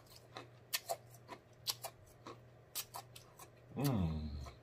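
Wet mouth sounds from a man savouring a drink: sharp lip smacks and tongue clicks, about two or three a second, irregular. About four seconds in comes a short falling 'mmm' of appreciation.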